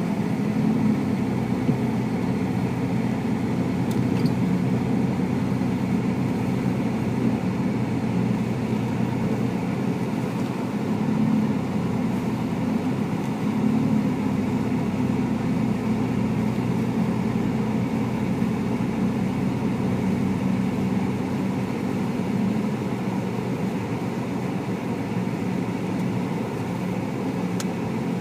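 Steady car engine and road noise heard from inside the cabin while driving, a low even hum.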